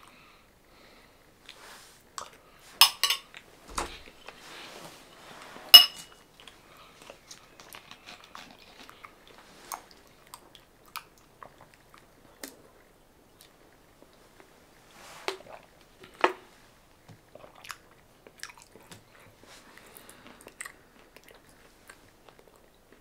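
A person chewing food close to the microphone, with scattered small mouth noises. A handful of sharp clicks and clinks cut through, the loudest about six seconds in.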